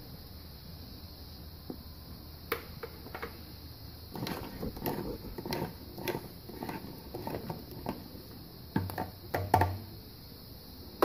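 Plastic clicks and light knocks as a garden pump sprayer's screw-on pump top is worked loose and lifted off. They come irregularly from about two seconds in, with a few louder knocks near the end.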